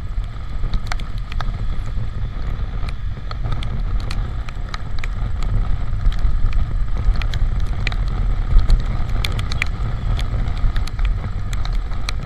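Wind rumbling on the microphone of a moving Honda Supra GTR 150 motorcycle riding in the rain, with the bike's running noise underneath. Many sharp ticks are scattered throughout, from raindrops striking the camera and windscreen.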